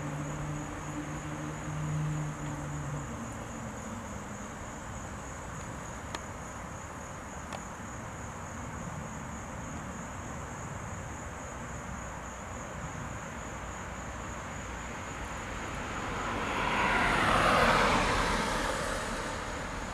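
A vehicle passes on the road, its noise swelling and fading over about three seconds near the end, over a steady high-pitched insect drone. A low engine hum is heard in the first few seconds.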